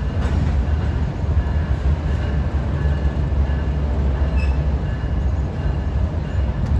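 A train rolling past: the steady low rumble of the rail cars on the track, with faint high-pitched tones coming and going over it.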